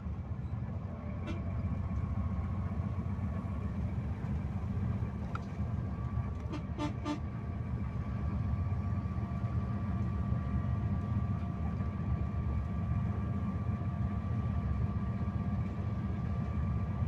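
Steady low rumble of a sleeper coach's engine and tyres while driving, heard inside the cabin, with a faint steady whine over it. About seven seconds in, three quick short beeps.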